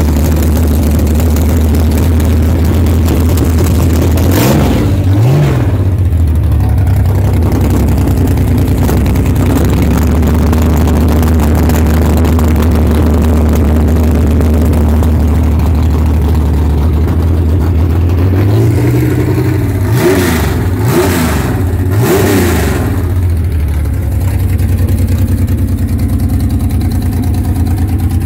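Drag-racing Ford Maverick's engine idling on its first start-up, blipped twice about four seconds in and revved several times in a row around twenty seconds in.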